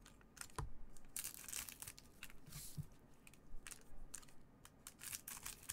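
Foil trading-card pack wrappers crinkling and tearing as they are opened by gloved hands, a run of short, sharp crackles with louder bursts of rustle scattered throughout.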